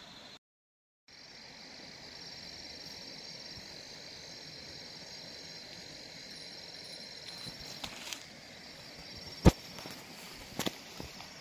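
Insects trilling in a steady high drone over open-air background. A few sharp knocks come in the second half, one much louder than the rest. The sound cuts out completely for a moment near the start.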